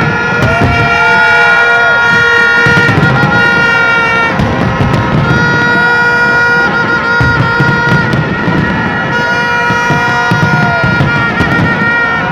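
Music of sustained, droning chords that shift about four seconds in, with faint crackling over it.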